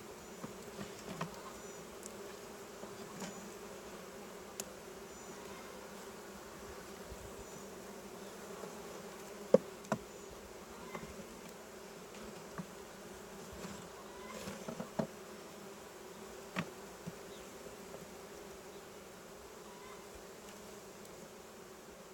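Honeybees buzzing in a steady hum around an opened hive, with scattered light clicks and knocks, the sharpest about ten seconds in.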